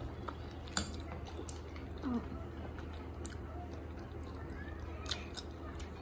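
A few soft, scattered clicks and taps of a fork and small fingers on a china bowl, with faint chewing, over a steady low hum.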